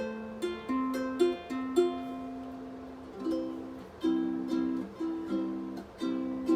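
Instrumental song intro on a plucked string instrument: single picked notes, then repeated chords from about three seconds in.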